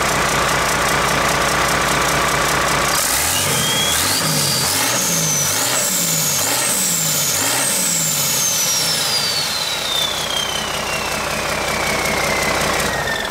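Cummins 6CTA 8.3 turbocharged marine diesel on a test stand, run up from a steady run with about five quick throttle stabs starting about three seconds in. Its turbocharger whine climbs in steps with each stab, then falls away slowly as the engine drops back to a steady run.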